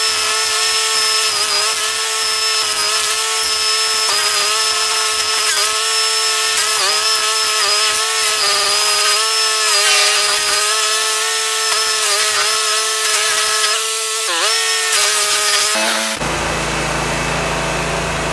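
Toro STX-38 stump grinder's engine running at high throttle while its toothed cutting wheel chews into a tree stump. The engine's pitch sags briefly each time the teeth bite hard into the wood, then recovers. About sixteen seconds in, the sound switches abruptly to a steady, duller rushing noise.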